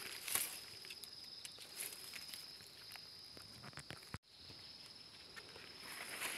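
Quiet footsteps and rustling through dry leaf litter and undergrowth, with a steady high-pitched drone in the background. The sound cuts out for a moment a little after four seconds in.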